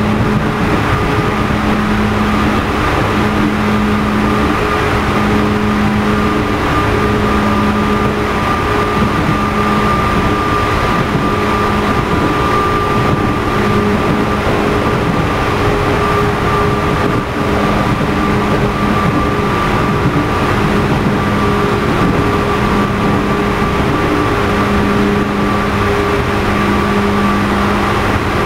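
Running noise of a JR East 211 series electric train heard aboard motor car MoHa 211-1. Its external-fan traction motors hum at a steady high pitch over wheel-and-rail noise, with a lower hum cutting in and out every second or two.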